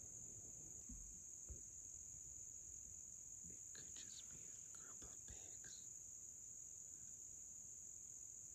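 Faint, steady, high-pitched chorus of insects trilling continuously in the woods. A few faint clicks and rustles come through about halfway in.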